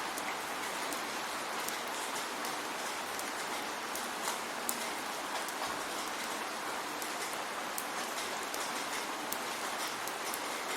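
Steady rain falling, a constant hiss with many separate drops ticking on a hard surface.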